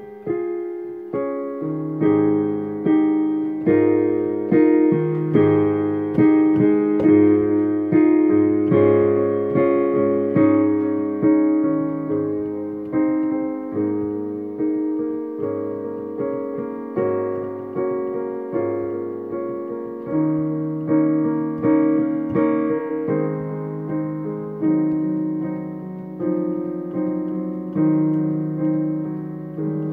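Digital piano playing a slow, gentle piece: chords struck about once a second, each left to ring and fade. It grows louder in the first third and then softens.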